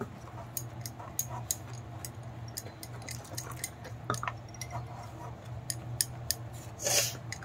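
Wire whisk clicking and scraping against a ceramic bowl while mixing flour and water into batter: light, irregular clicks over a low steady hum, with a brief louder rustle near the end.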